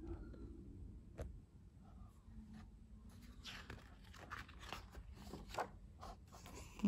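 Faint paper rustling and brushing as a page of a hardcover picture book is turned by hand, after a single soft click about a second in.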